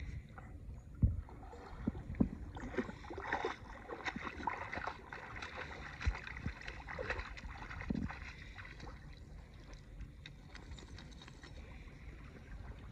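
Shallow seawater lapping and sloshing close to the microphone, over a low wind rumble. A crackly stretch of splashing in the middle comes as a dog wades through the shallows. A few sharp knocks are heard, the loudest about a second in.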